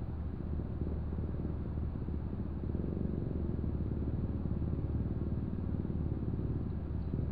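Steady low engine rumble with no breaks.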